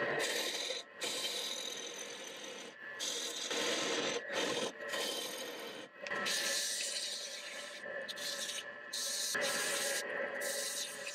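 Wood lathe running with a steady whine while a turning tool cuts and scrapes a spinning wooden spindle blank, in several separate passes with short breaks between them.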